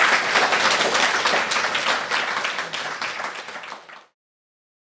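Audience applauding: dense clapping that fades gradually, then cuts off abruptly about four seconds in.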